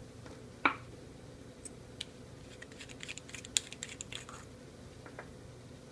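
Small clicks and taps of hand handling: an 18650 lithium-ion battery is set down on end on a wooden tabletop with one sharp click, then a flurry of light metallic ticks comes as a metal flashlight's tail cap is unscrewed.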